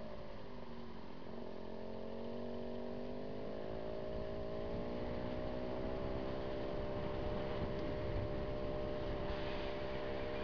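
Motorcycle engine running under way, with low road and wind rumble. Its note dips slightly, rises over a couple of seconds as the bike speeds up, then holds steady.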